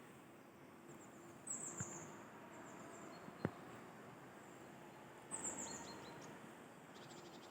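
A small songbird calling in bare spring woodland: two short runs of high, quickly falling chirps, about a second and a half in and again past the middle. A single sharp click comes in between, over a faint outdoor hush.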